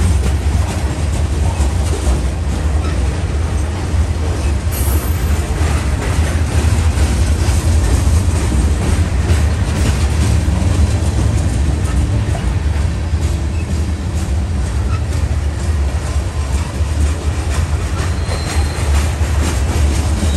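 Covered hopper cars of a CSX grain train rolling past: a steady, loud, heavy rumble with the wheels clicking over the rail joints, and a brief faint wheel squeal near the end.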